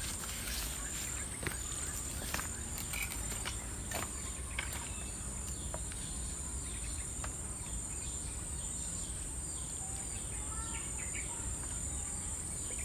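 Insects droning steadily at a high pitch, with a few faint bird chirps about two-thirds of the way through.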